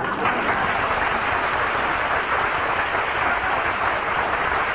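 Studio audience applauding steadily, heard on an old, narrow-sounding radio broadcast recording.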